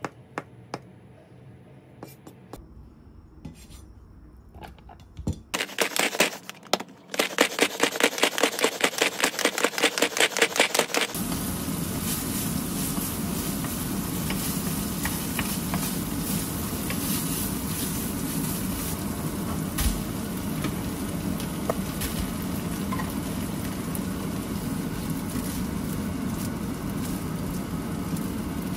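A kitchen knife mincing marinated abalone on a plastic cutting board in quick, even strokes, then, from about eleven seconds in, butter and abalone frying in a nonstick pan: a steady sizzle with a wooden spoon scraping and tapping through it.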